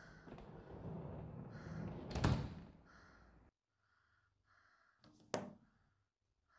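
A door banging in a small tiled bathroom: a low rumble swells into a loud thud about two seconds in and cuts off suddenly, then a second, sharper bang comes near the end.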